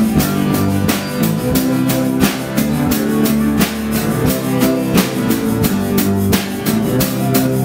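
A small live band playing: a drum kit keeps a steady beat under strummed acoustic guitars.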